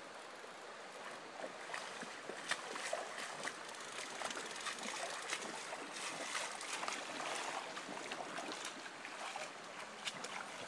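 Shallow river water running and rippling over rocks, with many small, irregular splashes and ticks of water.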